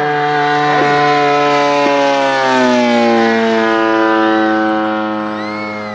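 Engine and propeller of a giant-scale RC Spitfire model flying past, a steady drone whose pitch drops about two to three seconds in as the plane goes by, then holds lower.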